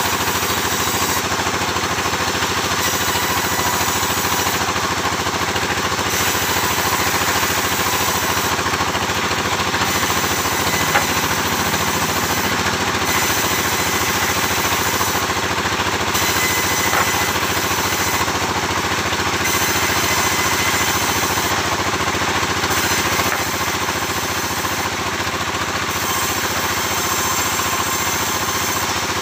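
Sawmill machinery running steadily, a constant engine drone with no break.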